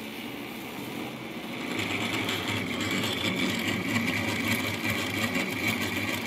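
Betar SGV-15 vane water meter whirring loudly with a steady high whine as water rushes through it to fill a water heater, getting louder about two seconds in. The meter spins fast and noisily, which the owner takes as a sign it will not last long.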